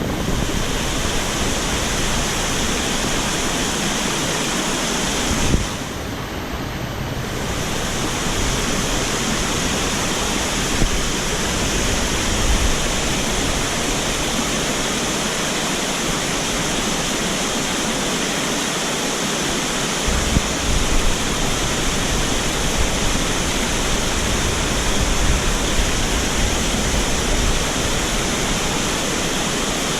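Mountain stream rushing steadily over rocks, with a brief bump about five and a half seconds in.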